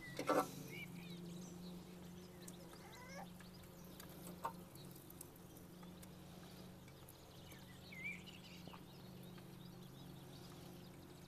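Metal grill tongs clacking against a griddle plate while chicken pieces are scooped up, with a sharp clack just after the start and a smaller one about four and a half seconds in. Birds chirp now and then over a steady low hum.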